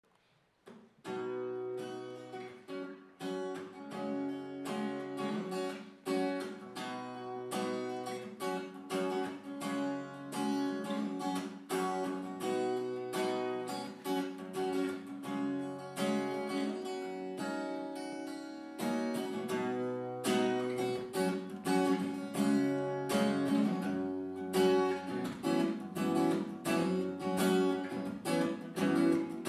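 Solo cutaway acoustic guitar playing an instrumental song intro: a quick run of plucked notes over a repeating bass pattern. It starts about a second in and grows louder in the second half.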